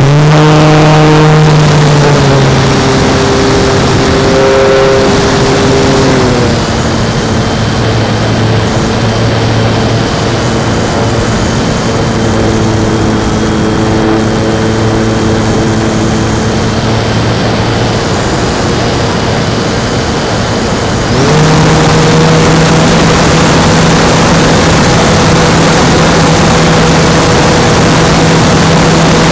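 Electric motor and propeller of an E-flite P-51 Mustang RC model plane, heard from on board, whining steadily at high throttle through the climb-out. It is throttled back about six seconds in, then opened up again about twenty-one seconds in, over a constant rush of air noise.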